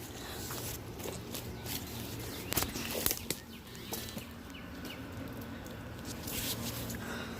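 Footsteps and rustling on wet, overgrown ground, with a few sharp snaps or knocks about two and a half and three seconds in.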